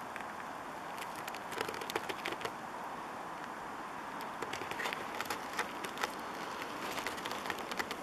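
Scattered crackles and clicks, like twigs and dry forest litter snapping as someone shifts their footing, over a steady background rush. The crackles come in a cluster about a second in and again through the second half.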